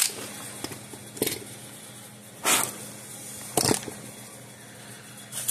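Handling sounds on a wooden workbench: a cordless drill set down and a small capacitor picked up, heard as about three short knocks and rustles, the loudest a thump a little after the middle, over a faint steady hum.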